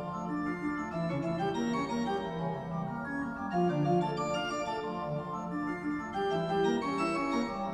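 Background music: sustained keyboard chords with a melody line, the notes changing about every half second.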